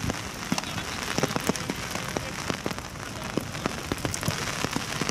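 Steady rain, with many irregular drops tapping close to the microphone.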